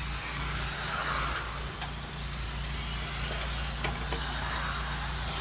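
Electric motors of radio-controlled touring cars whining as the cars lap the track, the high-pitched whine rising and falling as they accelerate and brake through the corners.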